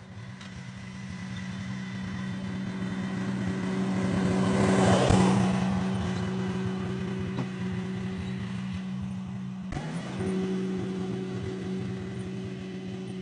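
An engine running steadily at a constant speed, growing louder to a peak about five seconds in and easing off again. It breaks off abruptly just before ten seconds and carries on.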